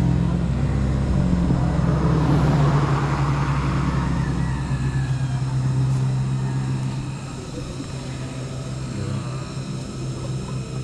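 A motor vehicle's engine running steadily with a low hum, dropping in level about seven seconds in.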